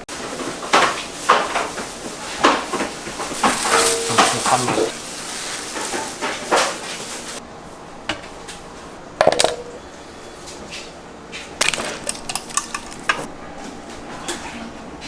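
Kitchen clatter: metal utensils, bowls and trays knocking and clinking, busy for about the first seven seconds, then scattered knocks.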